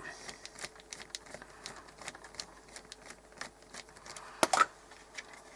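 Scattered small clicks and taps of a radio's case parts and screws being handled on a workbench, with a louder knock about four and a half seconds in.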